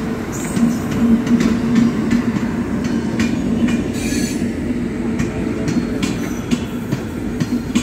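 Departing passenger train with a WAP-7 electric locomotive and coaches rolling past: a steady hum with irregular clicks and clanks of wheels over rail joints.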